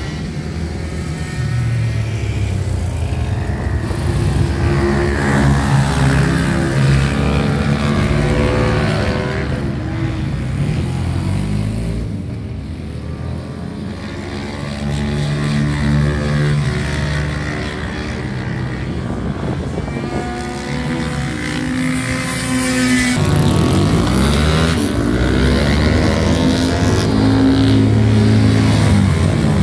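Several small racing motorcycles lapping, their engines revving up and down through the gears as they accelerate and brake. They are loudest in the last few seconds as two bikes pass close by.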